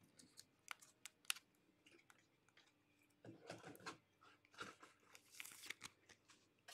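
Near silence with faint crinkles and clicks of a clear plastic card sleeve and toploader being handled.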